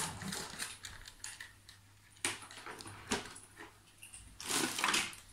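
Handling noises from toy parts and packaging: a few scattered clicks and knocks, then a louder rustle near the end.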